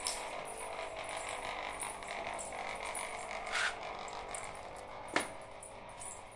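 Aquarium pump motor humming steadily, a motor that runs all the time and is noticeably loud, with a sharp click about five seconds in.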